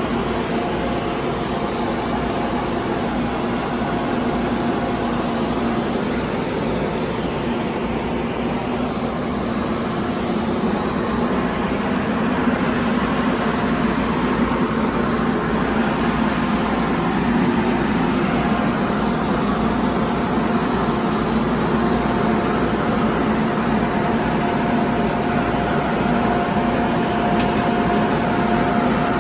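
St. Louis MetroLink light rail car standing at a platform with its doors open: a steady hum from its air conditioning and onboard equipment, with a couple of held tones, the higher of which comes and goes. A brief click near the end.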